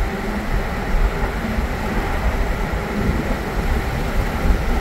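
Steady low road rumble and engine noise of a car driving along at speed.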